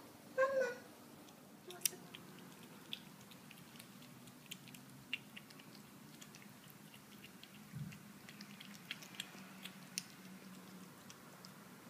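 A kitten meows once, about half a second in, then eats wet food from a stainless steel bowl: small, irregular chewing clicks throughout.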